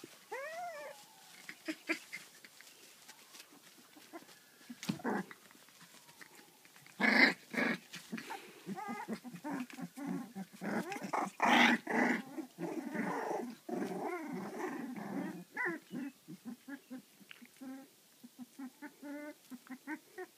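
Labradoodle puppies whining and growling, with many short high squeaky cries and a couple of louder cries about seven and eleven seconds in.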